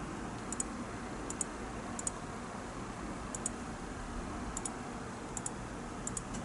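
Computer mouse button clicking seven times at uneven intervals, each click a quick double tick of press and release, over a steady low hiss of background noise.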